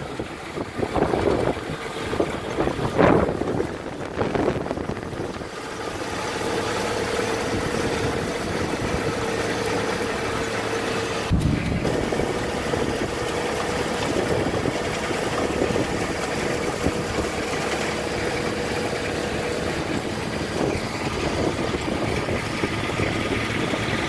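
Erme RE2 garlic harvester running steadily while lifting garlic, its engine and conveyors giving a continuous machine hum with a steady whine through much of it. Wind buffets the microphone in the first few seconds.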